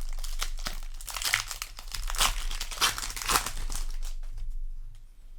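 Plastic foil wrapper of a Magic: The Gathering booster pack crinkling as it is handled and torn open, a dense crackle that dies down near the end.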